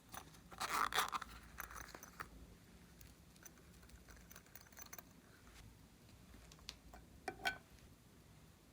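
Slime being worked by hand, giving off crackling and popping clicks: a dense run of crackles near the start, scattered small pops, then another short burst of clicks near the end.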